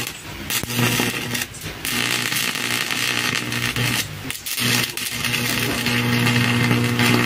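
Stick-welding arc fed by a homemade salt-water welding machine: a steady crackle and hiss over a low mains buzz as the electrode burns along a steel plate. The arc goes out briefly three times, near the start, about a second and a half in and about four and a half seconds in, and each time catches again at once.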